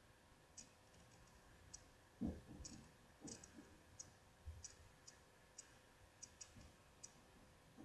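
Near silence with faint, irregular small clicks and a few soft thumps, the loudest about two seconds in: handling noise from fingers holding a baseball trading card close up.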